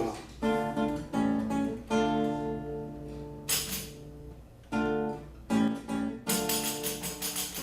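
Acoustic guitar strumming an intro in D minor, a series of chords that ring out between strokes. A tambourine joins about six seconds in and keeps jingling.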